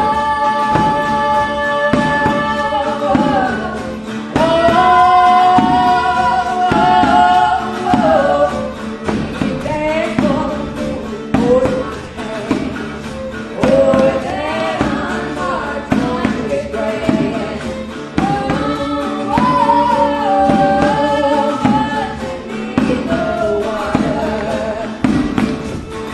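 Music with voices singing long, held notes.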